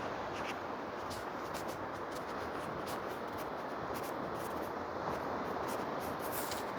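Steady hiss of Atlantic surf washing on the beach, with faint scattered clicks.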